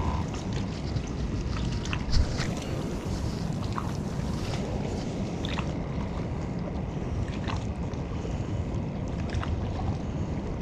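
Steady wind rushing over a GoPro action camera's microphone, with a few faint clicks from hands on a fishing rod and spinning reel.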